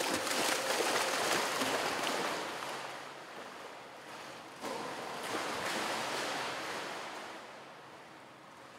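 Pool water splashing as a swimmer sprints freestyle, arms churning the surface. The splashing eases off, picks up again sharply a little past halfway, then fades.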